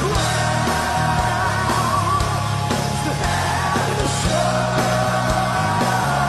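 Heavy metal band playing live at full volume: distorted electric guitars over a driving bass and drums, with held, bending lead-guitar lines.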